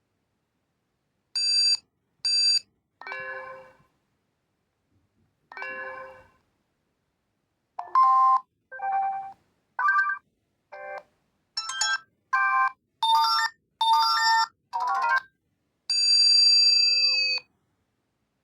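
Reeder P13 Blue smartphone's built-in ringtone and notification sounds playing one after another: short electronic beeps and chimes, each followed by silence. A quick run of melodic notes follows, then a longer held tone near the end.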